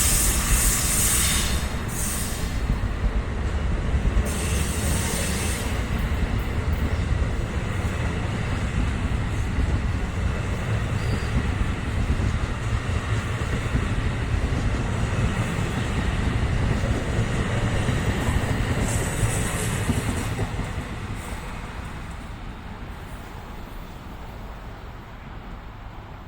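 A train passing on the rails, its wheels and cars giving a steady heavy rumble with a few brief high squeals. It fades away over the last several seconds as the train moves off.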